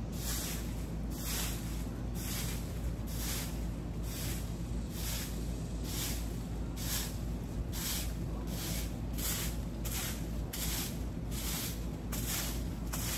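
Broom swept in quick, even strokes over dirt and scattered leaves, a swish about twice a second, with a steady low hum underneath.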